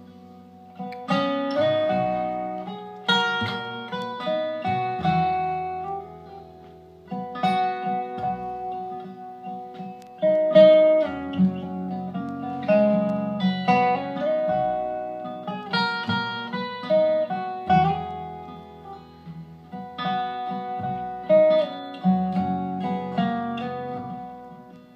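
Instrumental break of an acoustic folk song: plucked acoustic guitar picks a melody in a string of quick notes over low bass notes, with no singing.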